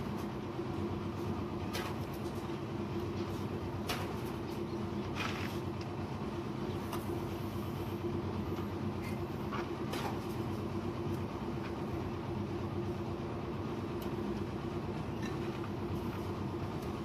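A steady, low machine drone, with a handful of sharp knocks over it from bricks being set on a wall.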